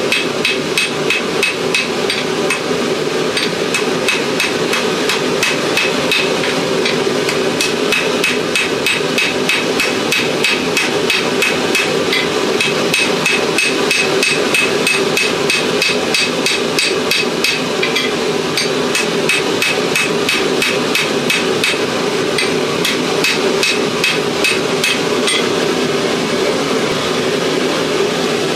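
Hand hammer striking hot steel on an anvil in a steady, even rhythm of rapid blows, each with a short metallic ring: a knife blade being forged out of an old file. A steady background noise runs beneath the blows.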